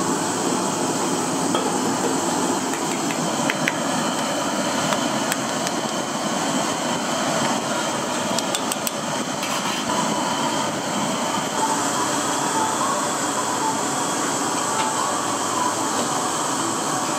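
Steady kitchen noise from a street-food stall's cooking area, with a few light clicks of utensils near the middle.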